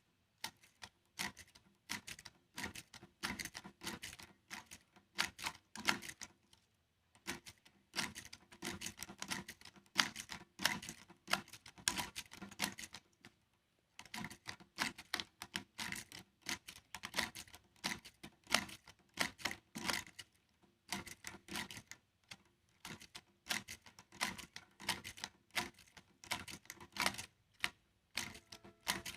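Dense, irregular clicking and tapping of small hard fan parts being handled and worked by hand. It comes in clusters, with brief pauses about seven and fourteen seconds in.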